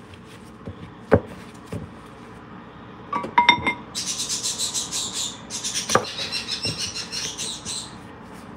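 Hands kneading soft dough on a stone countertop, with a few knocks of the dough against the counter, then a fast, even run of rubbing and squishing strokes from about four seconds in.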